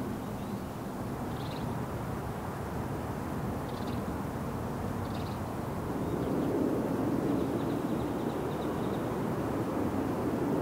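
Outdoor city ambience: a steady rumble of traffic that swells louder about halfway through, with a few short, high bird chirps.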